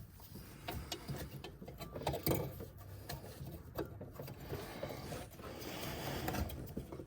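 Small plastic and metal clicks and scrapes as a replacement HID xenon bulb is worked into the headlight housing of a 2014 Subaru Forester, with a louder knock about two seconds in.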